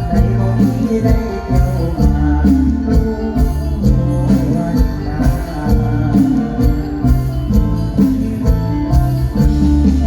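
Mor lam band music with a steady beat, a bass line and percussion.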